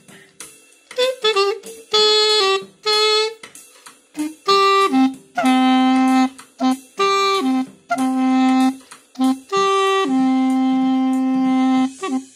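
3D-printed plastic pocket clarinet in C played as a simple tune: reedy notes stepping between a higher and a lower pitch, short at first and then longer, ending on a long held low note near the end.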